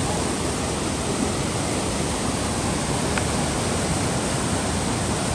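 Steady rush of water pouring through a concrete weir, a constant even roar of noise with no change.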